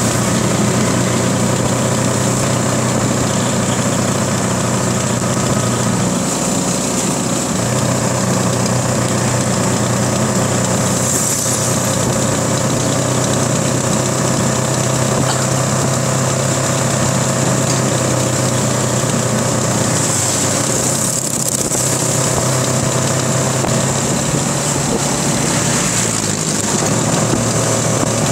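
Motorcycle engines running at a steady cruising speed, a continuous engine drone mixed with wind and road noise.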